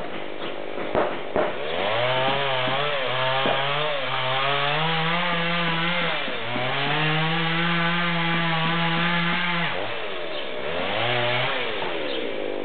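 Chainsaw engine revving up in steps and holding at high speed, dropping back to a lower speed twice and picking up again, with a few sharp knocks in the first second and a half.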